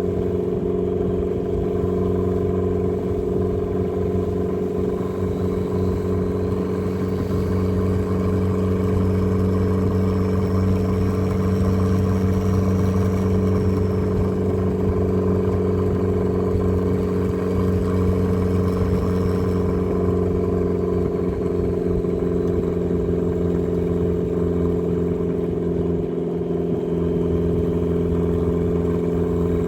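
A 300 hp turbocharged Mazda Miata's engine drones at fairly steady revs while driving. A faint high whine rises and falls twice around the middle.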